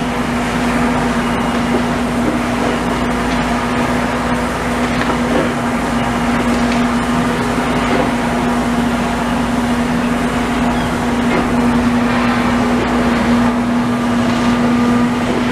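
Heavy diesel machinery engine running steadily, with a constant low drone.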